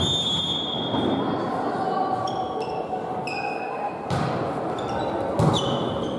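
Volleyball rally on a hardwood court: sneakers squeak in short high chirps as players shift, and the ball is struck with two sharp hits, about four and five and a half seconds in, the second the louder, ringing in the hall. Voices call out underneath.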